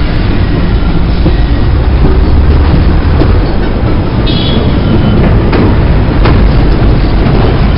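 Loud, steady running noise of a train heard from on board, a low rumble from the wheels on the track. A brief high-pitched squeal comes a little past halfway, and a couple of sharp clicks follow soon after.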